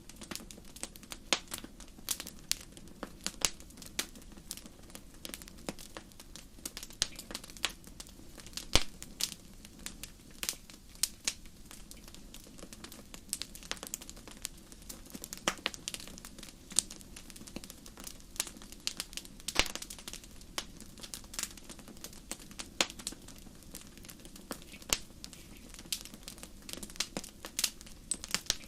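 Campfire burning: irregular sharp crackles and pops, some louder snaps among them, over a steady low rumble of the flames.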